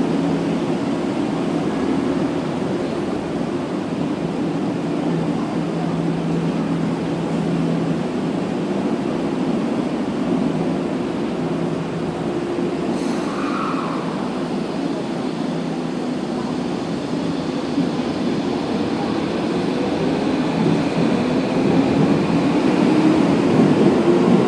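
Subway train sounds echoing in an underground station: a steady rumble with a low electrical hum, growing louder near the end.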